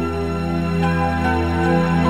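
Soft instrumental background music: keyboard chords held over a steady low bass note.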